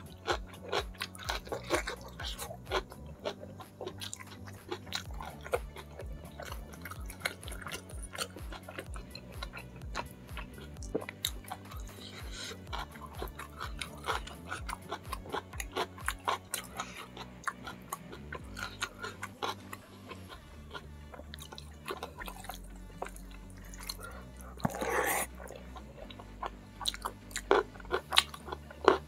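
A person chewing and smacking close to the microphone while eating spicy fish-head curry by hand: a dense run of short wet clicks and small crunches, with one longer, louder noise about 25 seconds in.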